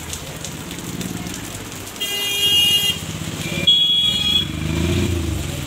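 Heavy rain pouring onto a flooded street, with a vehicle horn honking twice, about two seconds in and again a second or so later, and a motor vehicle passing near the end.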